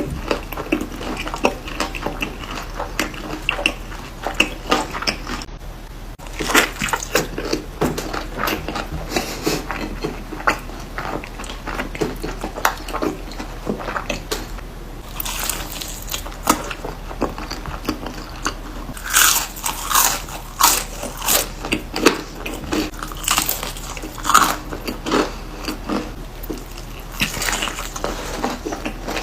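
Close-miked eating: crunchy bites and chewing with crackly, wet mouth sounds, coming in clusters with a brief break about five and a half seconds in.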